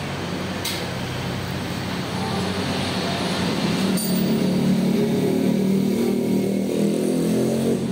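Electric motor and gearbox of a Fly-Speed tyre changer running with a steady hum while mounting a tyre. It gets louder about halfway through and drops back near the end, with two short clicks along the way.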